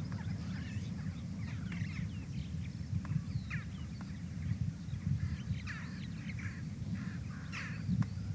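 Several birds calling: many short chirps and squawks rising and falling in pitch, some harsh, over a steady low rumble.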